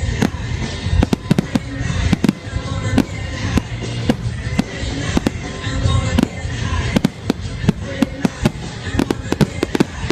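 Aerial fireworks going off in rapid, irregular succession: many sharp bangs and cracks, several a second at times, over a steady rumble.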